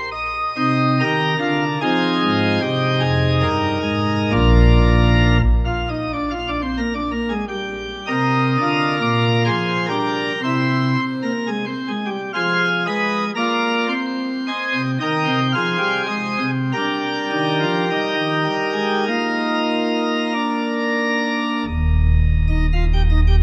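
Organ playing a postlude after the benediction: held chords changing every second or so over a moving bass line. About a second and a half before the end, different music with a heavy low bass cuts in.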